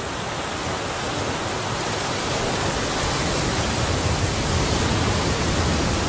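Steady rushing water noise, even and without pauses, that builds slowly in level.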